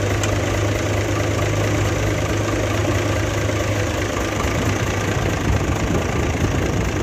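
Nissan FE6 six-cylinder diesel truck engine idling steadily with an even low hum.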